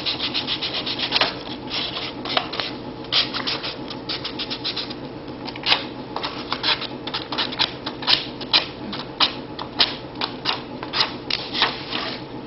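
Sandpaper rubbed back and forth by hand over the rough edge of a model rocket fin, smoothing off the leftover of a broken-off tab. It is a quick run of uneven scratchy strokes, about three a second.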